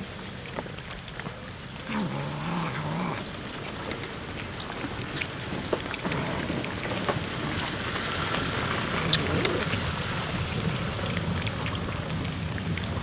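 Cats eating boiled chicken: many small wet clicks and smacks of chewing, with a short low cat vocalisation about two seconds in.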